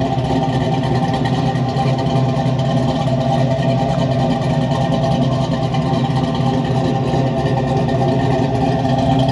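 LS3 6.2-litre V8 in a Chevy S10 pickup idling steadily through a stainless exhaust system.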